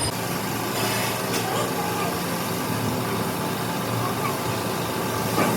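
An engine running steadily, with indistinct voices in the background.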